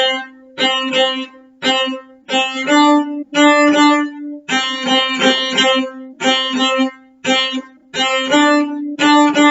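Cello bowing a phrase of short, separate notes on C natural on the A string, stepping up to high D with the fourth finger and back.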